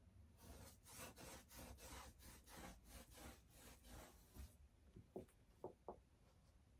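Faint, quick rubbing strokes of paint being worked onto a canvas, about three a second, stopping a little past halfway. Three short squeaks follow close together near the end.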